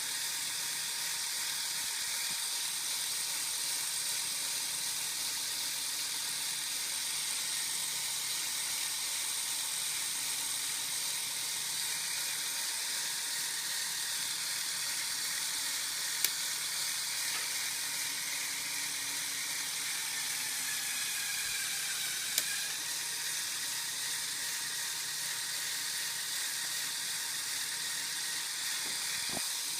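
Electric motor and plastic gear drivetrain of a Lego Technic four-wheel-drive model whirring steadily, with two sharp clicks partway through.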